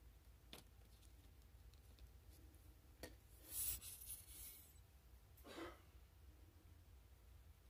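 Mostly near silence, with a few faint clicks and two brief soft rustles of fingers rubbing and pressing paper, the louder one about three and a half seconds in.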